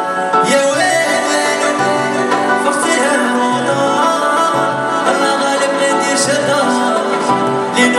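Live raï song: a male singer's voice over a Korg Pa900 arranger keyboard playing the backing with a repeating bass line.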